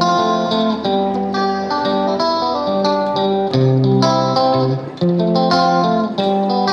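Background music: a plucked guitar melody with clear, separate notes.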